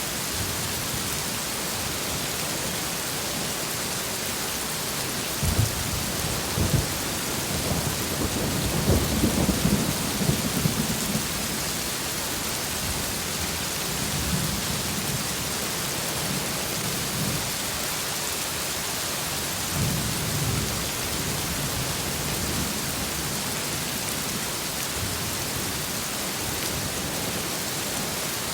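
Steady heavy rain with thunder rumbling several times, the loudest roll from about five to eleven seconds in and softer rumbles later.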